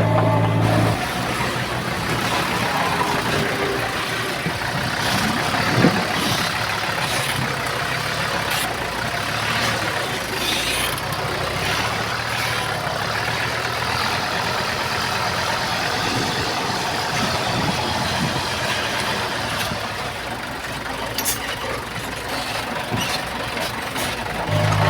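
Heavy earthmoving machinery running: a steady mechanical engine-and-machine noise, with scattered clanks and knocks for a few seconds near the start.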